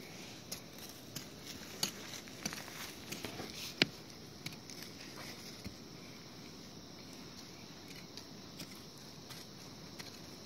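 A small hand hoe chopping at dry soil and straw stubble: irregular soft strikes and scrapes, busiest in the first four seconds, the sharpest one about four seconds in, then only a few.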